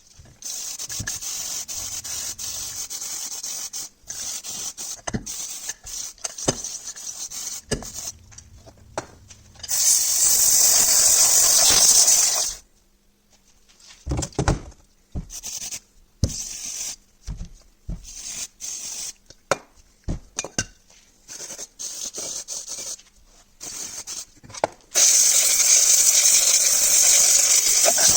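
Scrubbing and scraping on starter motor parts to clear corrosion, with small metal clicks and knocks, broken twice by loud bursts of hissing spray: once for a couple of seconds near the middle and again near the end.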